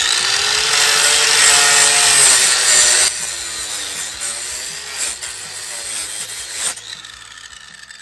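Electric angle grinder cutting through a rolled bundle of metal wire hardware cloth, its motor pitch wavering as the disc bites. It is loudest for the first three seconds, then quieter until it stops about seven seconds in.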